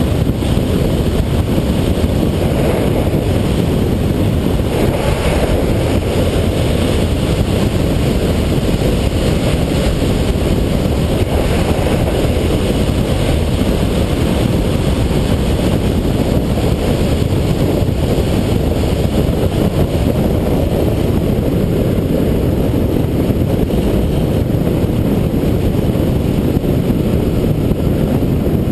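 Loud, steady wind rush buffeting the microphone of a camera carried by an inline speed skater rolling down an asphalt road at speed.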